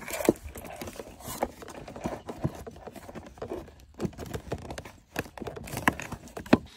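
A corrugated plastic secondary-air hose and its clip connector being pulled and wrestled off an engine airbox by hand. Irregular plastic clicks, knocks and rubbing, with a sharp knock near the start and another near the end.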